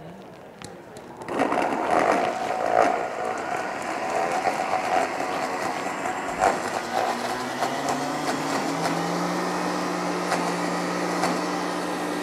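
Countertop blender switched on about a second in, blending a liquid dressing with garlic, chilies and dried shrimp: choppy and clattering at first, then a steady whir. Past the middle the motor's pitch climbs and then holds.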